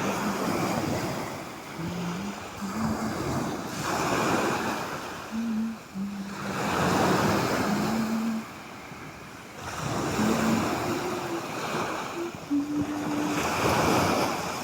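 Sea waves breaking and washing up the shore, the surf swelling and receding every three to four seconds.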